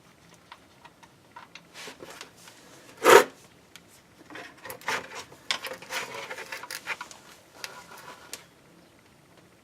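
Hand-handling noises: light rubbing and scattered small clicks, with one brief louder scrape or knock about three seconds in and a busier stretch of rustling after it.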